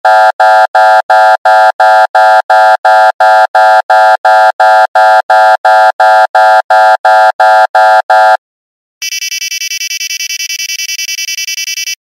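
Alarm beeping in a fast, even rhythm, about three loud beeps a second, stopping about eight seconds in. After a short gap a second, higher-pitched alarm starts, pulsing much faster and more quietly.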